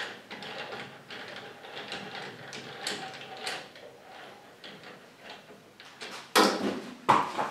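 Chuck key turning the scroll gear of a Hurricane HTC125 woodturning scroll chuck, the jaws sliding with a run of small metallic clicks and a faint whir. Two louder knocks near the end.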